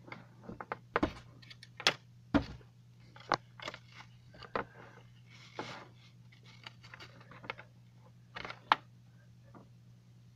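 Hands handling fabric and a toy bathtub close to the microphone: scattered taps, clicks and rustles, over a steady low hum.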